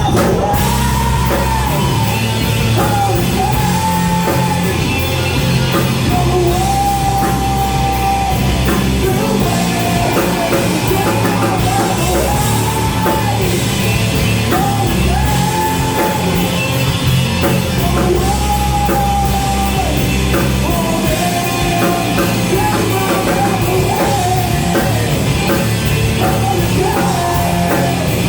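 Rock band playing loud, with a drum kit, heavy amplified guitars and a singer singing and shouting over them.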